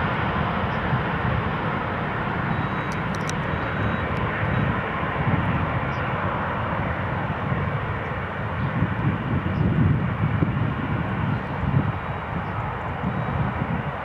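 Jet engine noise from a Boeing 777-200ER with Rolls-Royce Trent 800 engines as it lands, a steady roar over an uneven low rumble.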